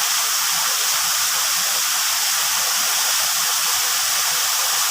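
Waterfall rushing steadily, an even hiss of falling water with no change in level.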